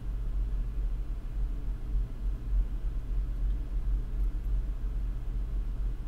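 Steady low hum and rumble.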